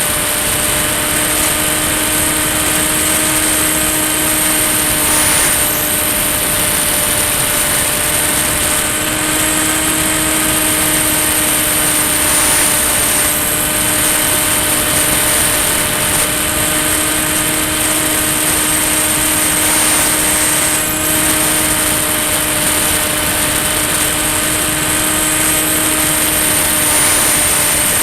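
Ranger EX FPV plane's electric motor and propeller in steady cruise flight: a constant buzzing drone with a slight wavering in pitch, over rushing airflow noise.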